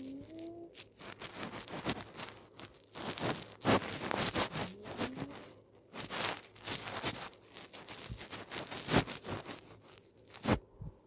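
A woman snoring in her sleep: rasping, crackly snores that come in bursts every few seconds.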